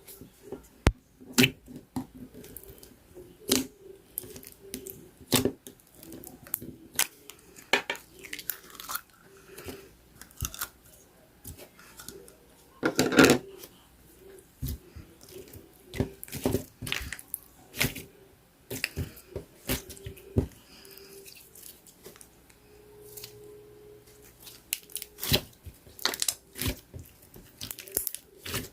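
Hands kneading, stretching and folding two slimes together, making irregular sharp clicks and pops as the slime snaps and traps air, with a longer crackling burst about thirteen seconds in.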